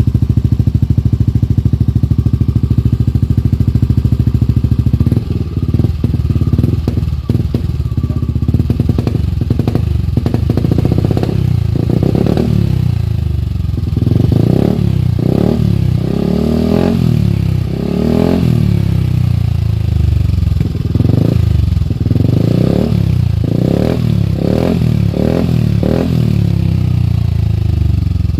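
Motorcycle engine running through a new stainless Kinoche aftermarket exhaust pipe, idling steadily at first, then blipped repeatedly, revving up and dropping back about every one to two seconds.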